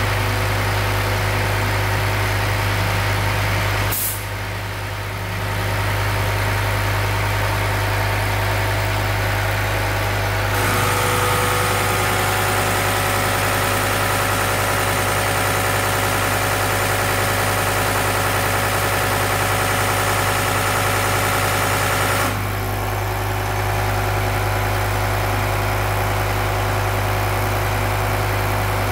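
Diesel injection pump test bench running steadily with a strong low drone. There is a short click about four seconds in, and a louder stretch of hiss with a steady whine from about eleven to twenty-two seconds in.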